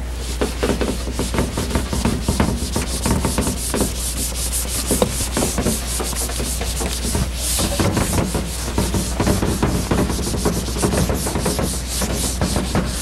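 Whiteboard eraser rubbing across a whiteboard in quick back-and-forth strokes, wiping off marker writing.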